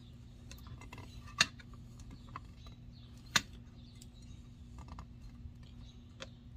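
Hand wire strippers clicking and snipping as insulation is stripped off a wire: a few sharp clicks, two louder ones about a second and a half and three and a half seconds in, over a faint steady hum.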